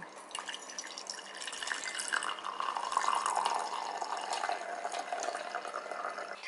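Brewed coffee poured from a glass pour-over carafe into a ceramic mug: a steady stream of liquid splashing as the mug fills.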